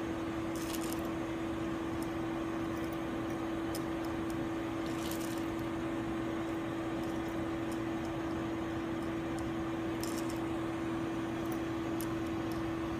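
Steady machine hum with one strong tone from the lab equipment, with a few brief light rattles as PLA plastic pellets are tipped from a metal spatula into the rheometer's sample ring.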